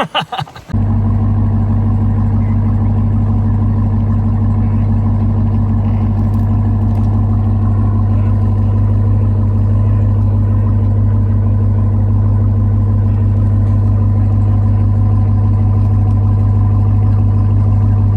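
Pickup truck engine running at a steady low speed under load, a deep even drone that cuts in suddenly just under a second in and holds without revving.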